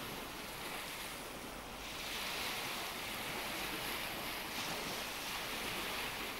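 Surf washing on a shore: a steady hiss of waves that eases briefly about a second and a half in, then swells again.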